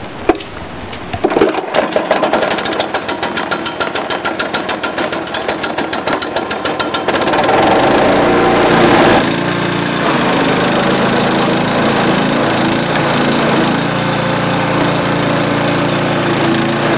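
Troy-Bilt chipper-shredder's small petrol engine starting up and running with a fast, even chug, then speeding up to a louder steady run about eight seconds in.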